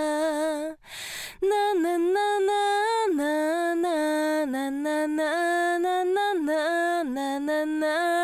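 A woman singing solo and unaccompanied, holding a wordless 'na na na' melody that steps between notes, with a quick audible breath about a second in. The dry vocal is compressed through a Universal Audio 1176LN.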